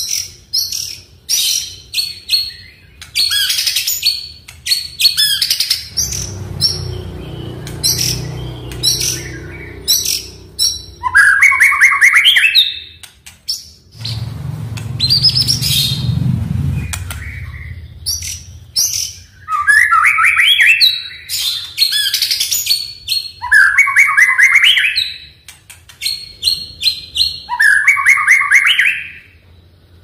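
White-rumped shama (murai batu) singing in full song. It gives a fast, varied string of sharp high chirps and whistles, broken every few seconds by rapid rising trilled phrases.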